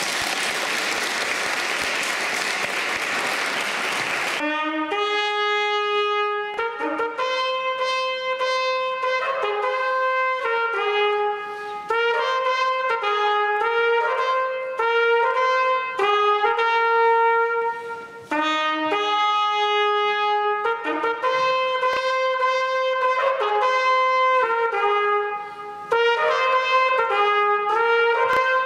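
Applause for about the first four seconds, then a solo trumpet playing a melody one note at a time, with short breaks between phrases.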